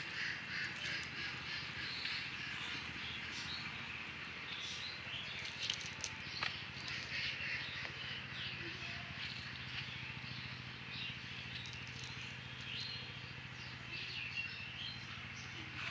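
Birds chirping and calling over a steady low hum, with a couple of sharp clicks about six seconds in.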